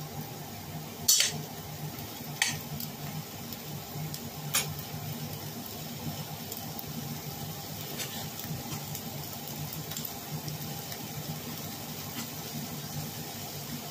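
Chicken pieces sizzling steadily in a stainless steel pot over a gas burner, with a metal spoon clinking sharply against the pot three times in the first five seconds.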